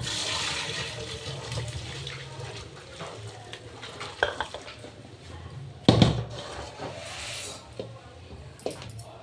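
Cooking in a pot or pan: a metal utensil knocks against it several times, the loudest knock about six seconds in, between stretches of hissing from water or sizzling food.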